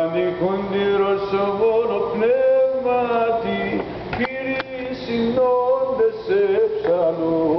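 Male voices chanting Byzantine chant in the plagal fourth tone: a sustained, ornamented melody over a steady low held note (the ison drone).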